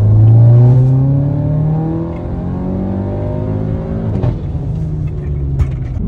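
Audi S3's turbocharged 2.0-litre four-cylinder, breathing through a DBV2 4-inch downpipe with its exhaust valves fully open, accelerating from inside the cabin. The engine note is loudest at the start and climbs in pitch for about four seconds, then drops back at an upshift and runs on steadier.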